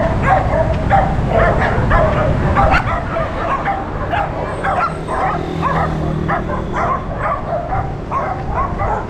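Dogs barking and yapping rapidly, several barks a second with no pause. The barks are strongest for the first few seconds, then turn higher and thinner.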